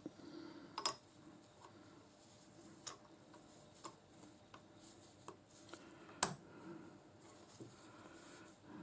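Steel parts of a lathe live centre clinking as a greased bearing is handled and set by hand into its housing: a few separate sharp clicks, the loudest about six seconds in, over faint handling noise.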